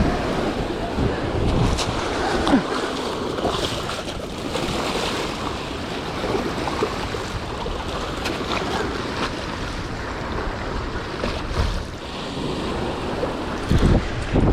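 Steady rush of moving river water mixed with wind buffeting the microphone, with a few brief knocks, one about two and a half seconds in and another near the end.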